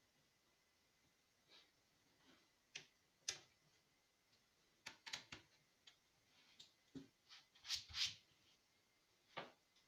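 Faint, irregular clicks and taps, about a dozen of them with uneven spacing, loudest about three seconds in and again around eight seconds in.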